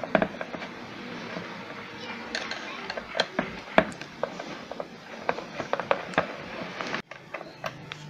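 Screwdriver backing out the screws of a vacuum cleaner motor's metal armature bracket: irregular small metallic clicks and scrapes.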